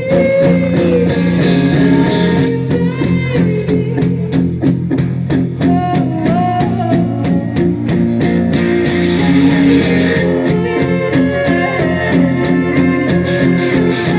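Rock band playing an instrumental passage without singing: guitars and bass over a steady drum beat, with a lead line bending up and down in pitch.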